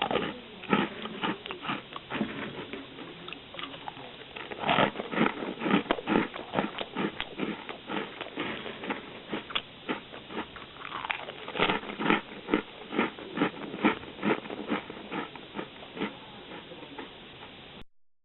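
Someone chewing crunchy Japanese baked sweets close to the microphone: a steady run of crisp crunches, about two a second, that cuts off abruptly near the end.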